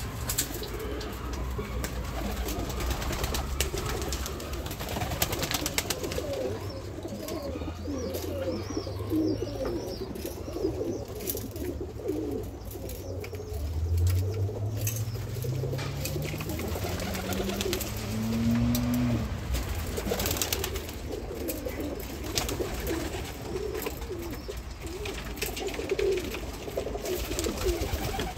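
Domestic pigeons cooing continually, low wavering coos with scattered clicks. About halfway through, a low hum rises steadily in pitch for several seconds and then stops.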